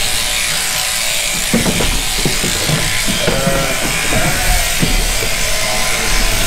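Electric sheep-shearing handpiece running steadily as it cuts through a fleece, with background music over it.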